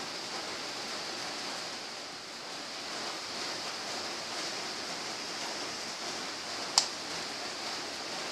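Saucepan of saba bananas and sago in sugar syrup simmering, a steady bubbling hiss. One sharp click a little before the end.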